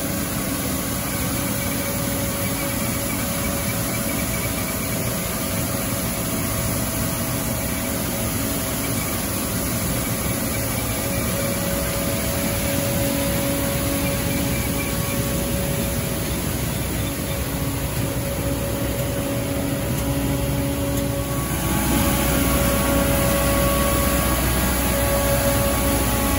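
Street sweeper truck working: a steady drone of its engine and sweeping machinery with a few steady whining tones over a hiss, as the side gutter broom brushes the pavement. It grows louder about 21 seconds in.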